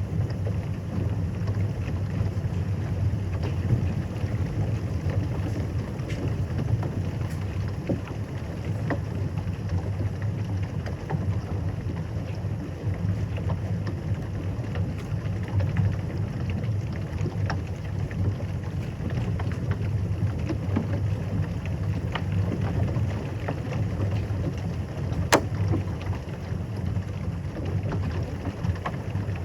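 Heavy rain in a thunderstorm: a steady low rumbling wash with scattered taps of drops striking, and one sharper click about 25 seconds in.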